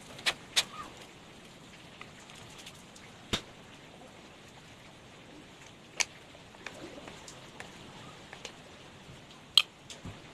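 Scattered sharp clicks and light taps of hand tools and small parts being handled during chainsaw repair: five louder clicks, the loudest near the end, among fainter ticks, over a faint steady hiss.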